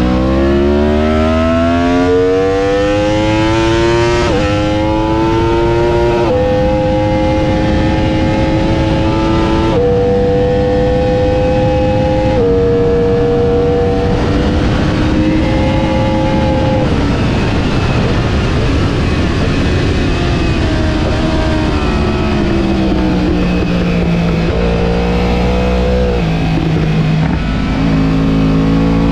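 Sport bike engine heard from onboard at speed. It accelerates hard with quick upshifts about four, six, ten and twelve seconds in, each dropping the pitch. It then comes off the throttle with stepped downshifts into a corner and picks up again near the end, with a steady rush of wind on the microphone throughout.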